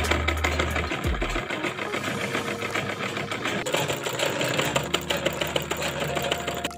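Sewing machine stitching steadily, a rapid, even clatter of the needle and feed as it hems the folded edge of a cotton t-shirt.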